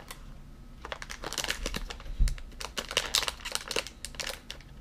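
Plastic snack wrapper crinkling and crackling in the hands as it is pulled at to tear it open, with a single dull thump about two seconds in.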